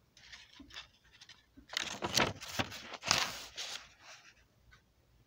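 Paper rustling and scraping as a page of a hand-drawn picture book is turned: a few faint ticks, then about two seconds of loud rustling that fades out after about four seconds.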